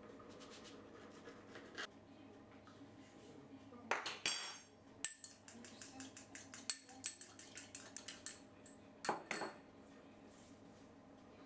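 Pastry brush clinking and tapping against a small ceramic bowl as egg wash is stirred: a ringing clink about four seconds in, a quick run of light taps through the middle, and another clink near the end.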